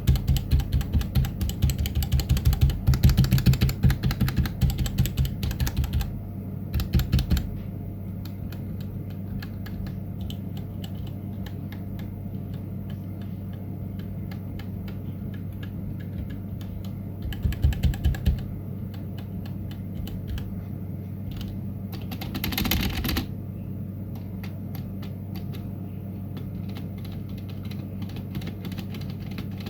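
Typing on a Womier K66 mechanical keyboard with Gateron Red linear switches. Fast, loud keystrokes run for about the first six seconds, then lighter scattered keypresses follow, with short louder bursts of typing near 7, 18 and 23 seconds, all over a steady low hum.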